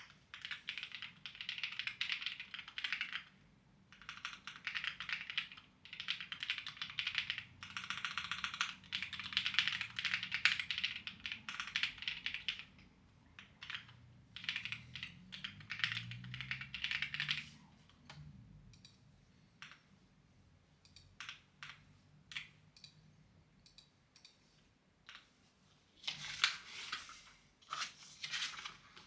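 Clacky computer keyboard being typed on in quick runs of several seconds each, broken by short pauses. Past the middle the typing thins to a few scattered key presses, then picks up again near the end.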